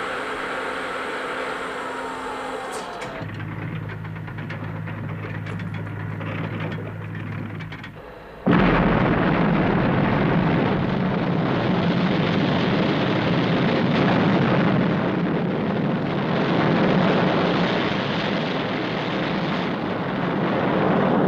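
Sound effects of a burning tower: a low steady hum at first, then about eight seconds in a sudden loud blast that runs on as a heavy, steady roar of fire.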